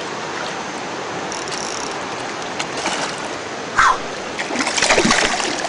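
Steady rush of fast river water over rapids, with a short burst of splashing about four seconds in and more splashing near the end.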